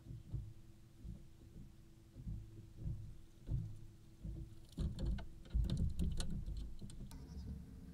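Small waves slapping irregularly against a fiberglass boat hull, with a faint steady hum underneath. About five seconds in, a burst of sharp clicks and knocks lasts a couple of seconds.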